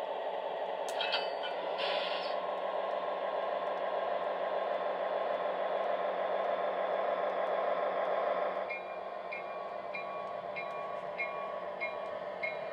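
O-scale MTH model diesel switcher (an SW1500) running along three-rail track, its sound system playing a steady diesel engine rumble mixed with wheel and motor noise, with a short horn toot about two seconds in. From about nine seconds the running grows quieter and a bell rings about twice a second.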